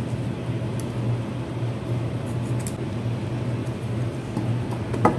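A steady low hum, with a few faint light ticks of a small flat screwdriver against the metal engine cover as it is worked around the shaft seal ring, and a sharper knock near the end.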